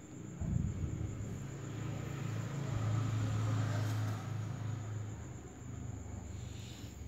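A low rumble that swells over a couple of seconds and fades away, after a single thump about half a second in, over a steady thin high-pitched whine.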